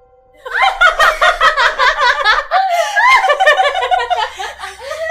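Women laughing, high-pitched and in quick repeated bursts, starting about half a second in.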